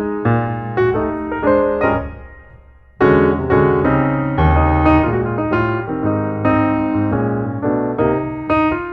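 Background piano music, notes struck and left to ring; the playing dies away about two seconds in, and a louder passage starts at about three seconds.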